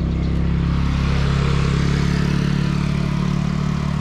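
Motorcycle engine running as the bike approaches along the road, growing a little louder through the middle, over a steady low engine hum.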